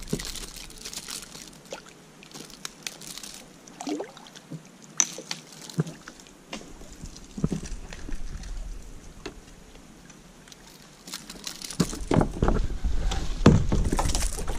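Water sloshing and small splashes around a kayak, with scattered light knocks and clicks; the splashing grows louder near the end.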